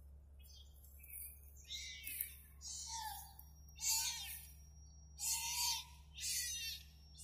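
Young kittens mewing over and over: short, high-pitched, wavering cries roughly once a second.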